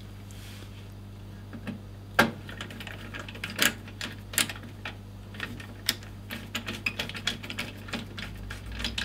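Irregular sharp clicks and taps of a screwdriver and a 2.5-inch hard drive being worked into its mount in a computer case. They begin about two seconds in, over a steady low hum.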